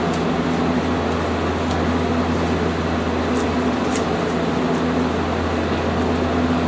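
Cabin noise aboard a Hiroshima Electric Railway 800-series streetcar: a steady hum with a low drone and a few higher tones over an even rumble, and a few faint high ticks.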